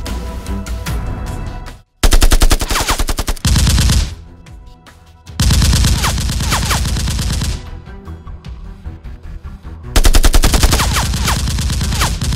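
Dubbed-in machine-gun sound effects firing in rapid bursts over background music. There are three main volleys: about two seconds in, about five and a half seconds in, and again near the end. The loudest starts just after a brief cut-out.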